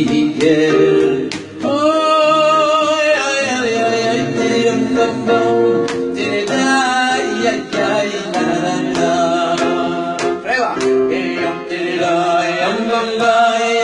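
A man singing a slow melody into a handheld microphone, holding long notes that waver.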